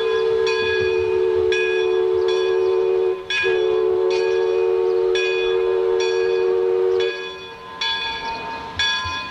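Steam whistle of the Mark Twain sternwheel riverboat blowing two long blasts, the first cut off at about three seconds and the second ending about seven seconds in. A bell clangs repeatedly, about once a second, under the whistle and after it.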